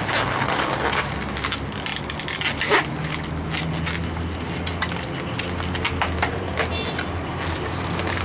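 Inflated latex 350 twisting balloon being handled and twisted into a bubble: rubber squeaking and crackling in many short, irregular bits, over a steady low hum.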